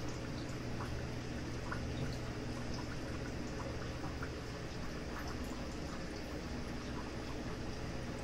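Aquarium filters bubbling and trickling, with many small bubble pops over a steady low hum.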